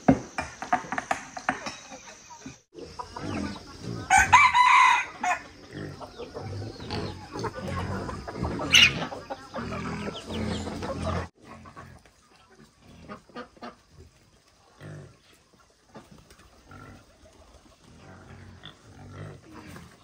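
Free-range chickens clucking in a farmyard, with a rooster crowing once about four seconds in. Past the middle the sound drops to faint, scattered calls.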